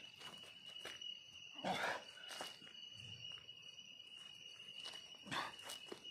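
An insect trilling steadily on one high note, with two short louder scuffs of movement about two seconds in and again near the end.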